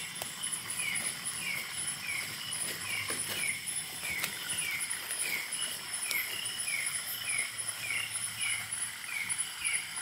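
Night-time tropical forest insect chorus: a steady high-pitched trill, with a short falling chirp repeating about twice a second and a few faint clicks.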